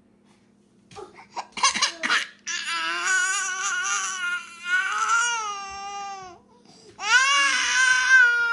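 Baby girl crying: a few short fussy cries, then a long wavering wail that falls away at its end, and after a brief breath a second long wail. She is crying at losing her pacifier to her twin.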